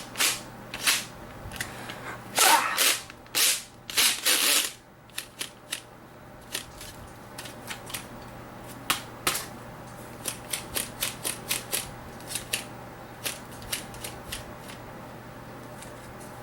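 Plastic and metal parts of an old IDE optical drive clicking, scraping and rattling as its stuck tray is worked loose by hand. A louder run of scraping and rattling comes about two to five seconds in, then scattered light clicks.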